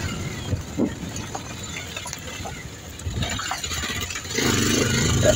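A motorcycle engine running at low revs, growing louder about four seconds in.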